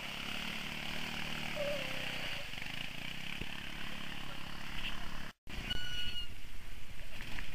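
Quad (ATV) engines running as the quads ride through a muddy, puddled trail, a low engine hum over a steady hiss. The sound cuts out for a moment about five seconds in, then the engine noise returns.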